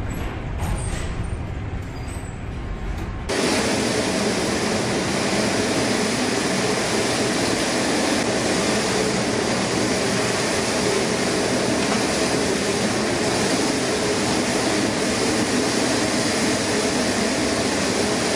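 Storm wind and heavy seas against a laden container ship: a loud, steady rushing noise with a faint drone under it. About three seconds in it switches suddenly to a louder, fuller rush.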